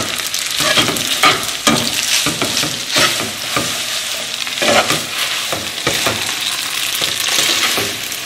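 Spaghetti carbonara (spaghetti, bacon and egg) sizzling in a hot skillet while it is stirred and tossed briskly with tongs. The tongs click and scrape against the pan over and over.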